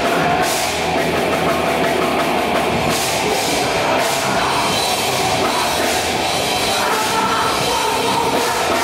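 Loud rock music with a drum kit, playing steadily.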